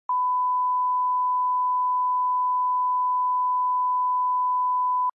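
1 kHz broadcast line-up test tone, the reference tone that goes with colour bars: one steady pure beep about five seconds long that starts and cuts off abruptly.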